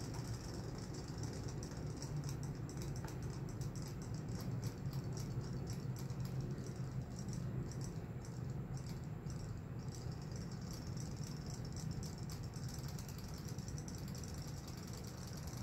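Robotic swimming fish toys running in a plastic bowl of water, their small motors making a steady, fast buzzing rattle over a low hum.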